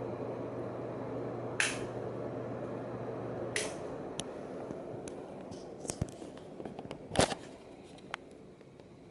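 Coolfan Huracan ceiling fan running with a steady motor hum and air whooshing, and several sharp clicks. The hum cuts off about three and a half seconds in, and the whooshing fades as the blades coast down. This fits the fan being switched off.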